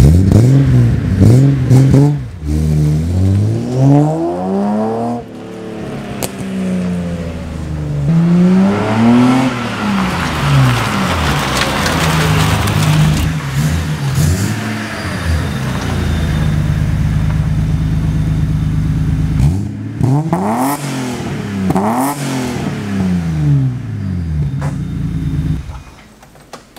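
1982 Toyota Celica Supra's 5M-GE inline-six running through a Greddy header and 3-inch exhaust as the car is driven. The note climbs and drops several times under acceleration, holds steady for a few seconds in the middle, and stops shortly before the end.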